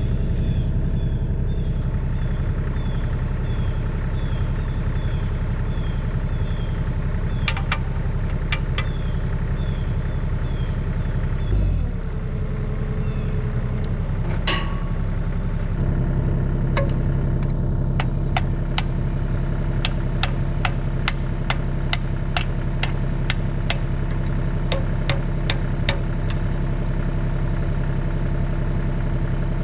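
Bobcat 325 mini excavator's diesel engine idling steadily, its note shifting slightly about halfway through. A run of light, sharp clicks sounds over it in the second half.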